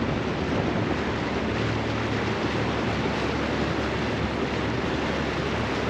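Steady rushing noise of wind and water aboard a moving pontoon boat, even throughout with no sudden sounds.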